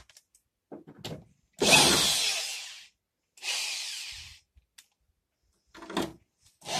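Power drill driving screws into sheet metal to fasten a patch plate: two runs of about a second each, the second a little shorter, with a few light knocks of handling around them.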